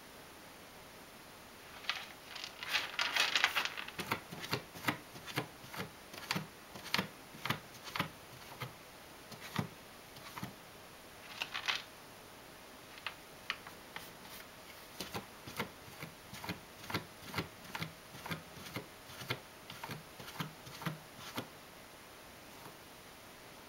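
Ragdoll cat digging in cat litter with its paws: irregular scratchy rakes, with a quick flurry about two seconds in and scattered strokes after, heard inside a hooded litter box.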